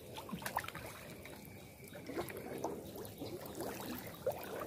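Faint sloshing and trickling of shallow water as people wade and grope for small fish by hand.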